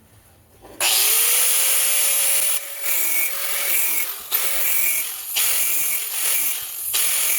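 A small power grinder spins up about a second in, then cuts into a chainsaw's steel clutch drum with a steady grinding whine. The sound drops briefly several times as the wheel is eased off between cuts.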